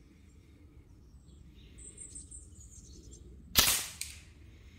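A single shot from an FX Impact FAC air rifle firing a slug: one sharp crack about three and a half seconds in that dies away quickly, followed by a fainter click under half a second later.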